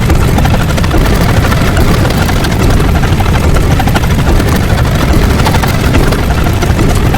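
Loud, steady mechanical rumble with a fast, even pulse and strong low end, like rotor or heavy-engine noise.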